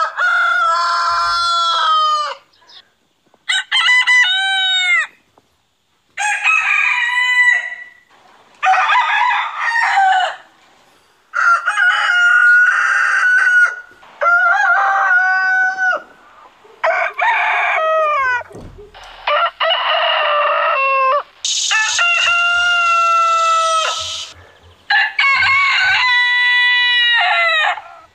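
Roosters crowing one after another: about ten separate drawn-out cock-a-doodle-doos of roughly two seconds each, with short gaps between them. Each crow comes from a different bird, so pitch and length change from one crow to the next.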